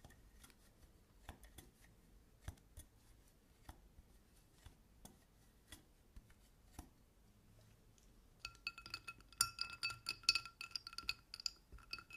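Pecorino cheese scraped over a flat hand grater in short, irregular strokes. About eight seconds in, a run of rapid clinks with a ringing glassy tone takes over and is the loudest part.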